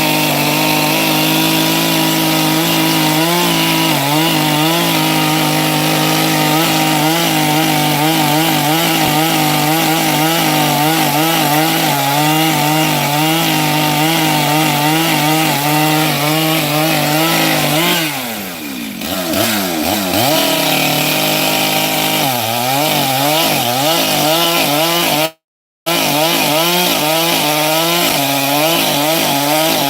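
Chainsaw running at high revs while cutting firewood, its pitch wavering and dipping as the chain loads in the wood. About 18 seconds in it drops sharply and recovers, and near 25 seconds the sound breaks off for half a second.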